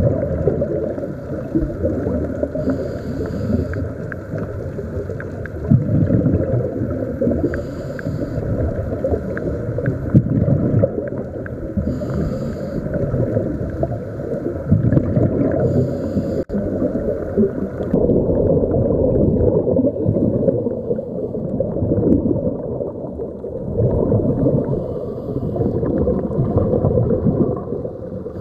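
Scuba diver breathing through a regulator, heard underwater: a brief hiss on each inhale and a rush of bubbles on each exhale, a breath every few seconds.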